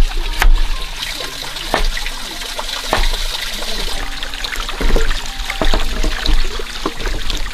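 Water trickling and splashing, with scattered clicks and knocks.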